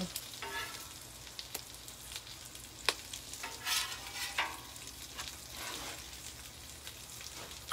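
Bacon and chaffles sizzling on a hot flat-top griddle, a steady frying hiss, with a few scrapes and clicks of a metal spatula on the cooktop, the sharpest about three seconds in.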